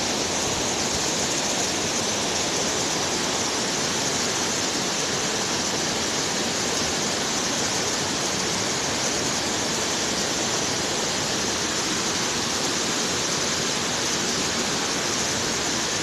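Waterfall rushing steadily: a dense, even hiss of falling water that never changes.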